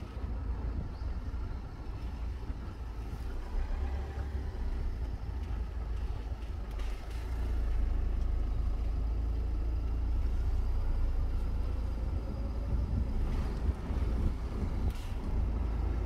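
Steady low rumble of a car moving slowly, heard from inside the cabin, a little louder from about halfway through.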